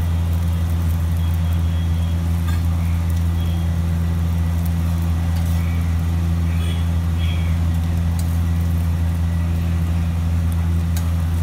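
A steady low mechanical drone, like a motor running, dominates throughout. Over it come a few light clicks of a metal spatula on the iron griddle as parathas are pressed and stacked.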